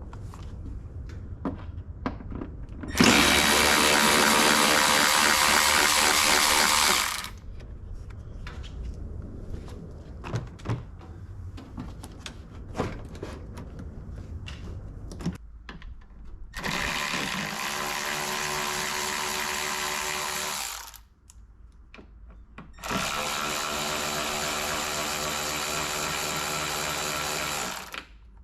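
Power drill-driver with a Torx bit running in three steady spells of about four to five seconds each, driving out headlight mounting screws; the first spell is the loudest. Small clicks and knocks of handling fall between the spells.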